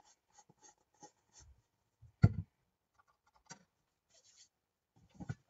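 Craft tools and supplies being handled on a tabletop: faint scattered clicks and rubs, with one sharp knock about two seconds in and two smaller knocks later, as of items being set down.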